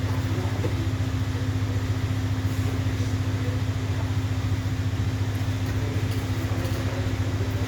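An engine idling steadily, a low even hum with a fast, regular flutter.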